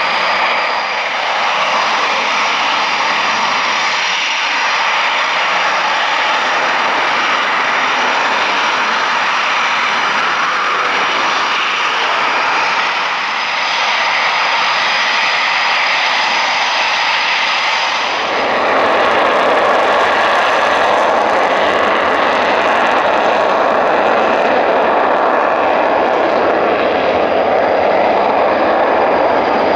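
Eurofighter Typhoon jet engines running: a steady, loud jet noise with a thin high whine on top. About 18 seconds in, it swells, louder and fuller.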